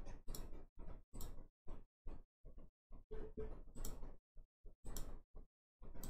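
Faint short clicks and taps of a computer mouse being clicked at a desk, roughly two a second and unevenly spaced, with silence between them.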